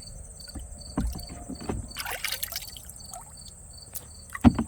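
Crickets chirping steadily, about two chirps a second, over a high insect whine. Close knocks and a brief rustle of handling break in over them, the loudest knock near the end.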